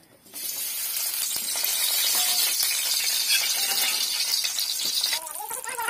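Chopped onions tipped into hot oil in a steel kadai, sizzling loudly as soon as they land and stopping abruptly about five seconds in.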